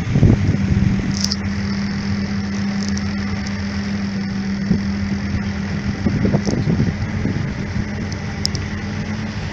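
Motorboat engine running with a steady, even hum.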